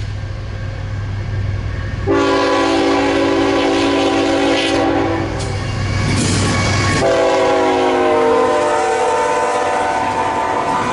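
Canadian National freight locomotive's multi-note air horn sounding two long blasts, the first starting about two seconds in, the second about seven seconds in and falling in pitch as the locomotive passes close by. A low engine rumble runs under the first part, and the rolling noise of the passing train continues near the end.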